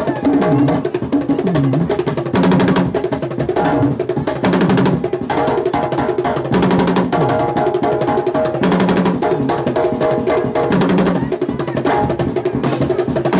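Live aloukou band music without singing: drums and percussion keep up a busy rhythm over a low pitched part whose notes slide up and down.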